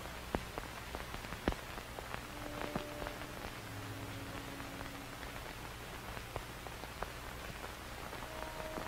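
Steady hiss scattered with crackling clicks, two sharper clicks in the first two seconds, with a few faint held musical notes underneath.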